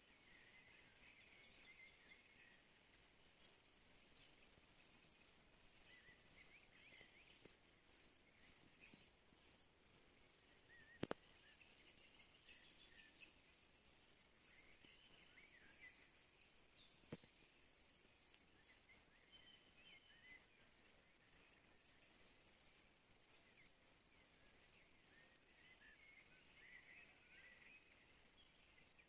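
Faint evening insect chorus: crickets chirping in a steady high pulsing trill, with a second, faster and higher insect trill joining from about twelve to nineteen seconds in. Two sharp clicks stand out, about eleven and seventeen seconds in.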